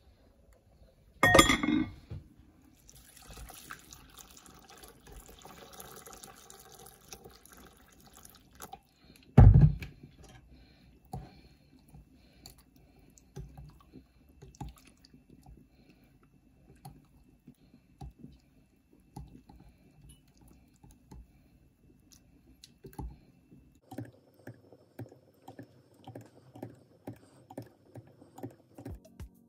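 Hot water poured into a glass bowl of palm nut paste, then a small metal whisk mixing it, ticking against the glass about two or three times a second near the end. Two loud knocks, one just after the start and one about ten seconds in.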